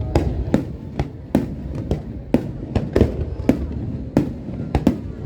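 Aerial fireworks bursting in a rapid, uneven run of sharp bangs, about two or three a second, each followed by a short rumbling echo.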